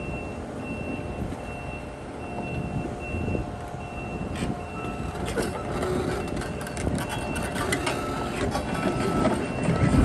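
Backup alarm of a tracked machine beeping steadily, almost twice a second, as it reverses onto a lowboy trailer, its engine running underneath. A second, lower-pitched beep joins about halfway, and clanks and knocks from the tracks on the deck grow louder near the end.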